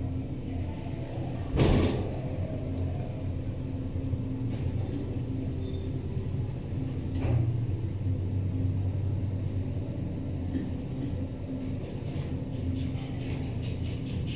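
Otis Series 1 hydraulic elevator car travelling up, with a steady low hum of the hydraulic drive and ride. A thud comes about two seconds in and a softer knock about seven seconds in.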